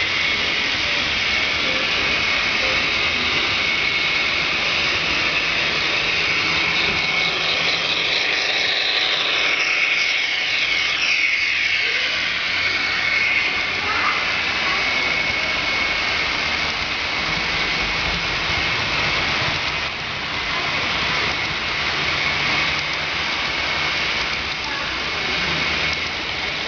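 Model freight train running on the layout: a steady whirring rumble of wheels on rail with a high steady whine, and a passing sweep about halfway through as the train comes across the girder bridge close by.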